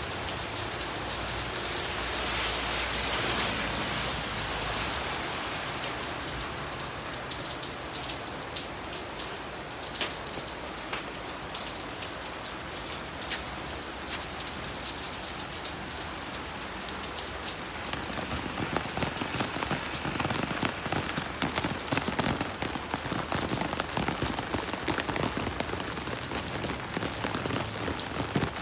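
Steady rain falling, with drops pattering on surfaces; about two-thirds of the way through the drops get louder and denser.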